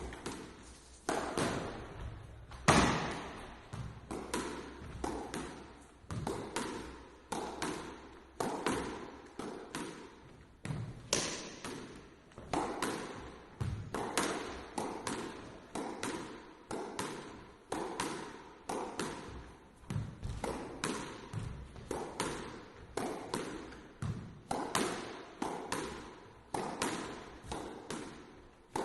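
Squash ball struck by a lone player, hitting racket and front wall in an irregular stream of sharp smacks, about one or two a second, each ringing briefly in the court.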